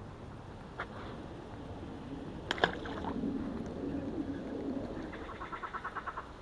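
A short splash as a small perch is dropped back into the water, then a dove cooing. A quick run of ticks comes near the end.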